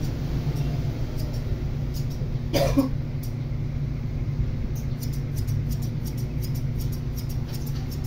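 Electric hair clipper humming steadily, with light high ticks scattered through. A short cough about two and a half seconds in.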